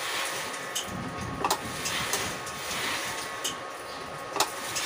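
Semi-automatic mini screen-printing machine for plastic cups running its motor-driven cycle after a single press: a motor starts up about a second in, with a rhythmic rasping roughly once a second. Sharp clicks come about a second and a half in and again near the end.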